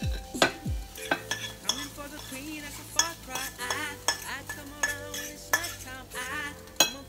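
Scrambled eggs being served onto a plate: a utensil clinks, knocks and scrapes against the plate and dishes in a string of sharp clicks.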